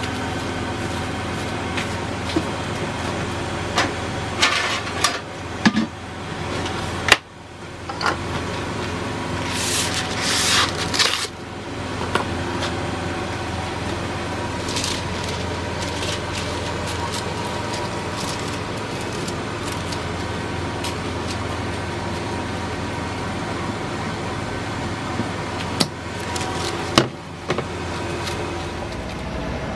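Cling film and paper crinkling and rustling as a board is wrapped by hand, with a sharp knock about seven seconds in and wooden knocks near the end as a wooden box or lid is handled, over a steady machine hum.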